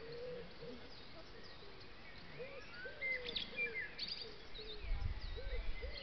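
Wild birds chirping and whistling: many short high calls, with a lower note repeated at irregular intervals. A low rumble comes in near the end.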